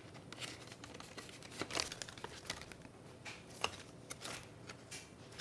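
Soft rustling and crinkling of clear plastic cash envelopes and paper bills as the pages of a ring binder are turned, with a few sharp clicks from the binder's metal rings.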